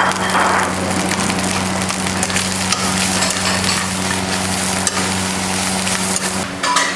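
Food sizzling and crackling in a hot pan, over a steady low hum.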